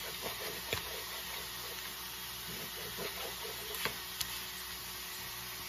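Ground beef and chopped onion sizzling steadily in a stainless skillet, with a few sharp knife taps on a plastic cutting board, two of them close together near the four-second mark.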